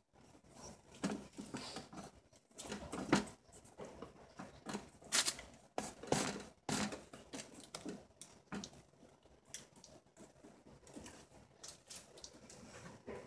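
Plastic piping bag crinkling and rustling as it is handled and squeezed, in irregular bursts with a few sharper clicks.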